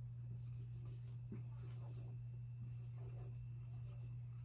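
Faint scratching of hand-writing, pen or marker strokes forming letters, over a steady low hum.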